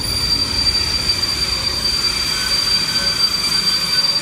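Freight train of container and tank wagons rolling slowly past, its wheels giving a steady high-pitched squeal over the rumble of the wagons.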